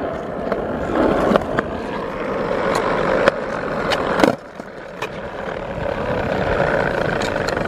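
Skateboard wheels rolling on a hard court with a few sharp clicks. About four seconds in comes a loud snap and clatter as the skater pops a flip trick. The rolling stops for a moment, then starts again.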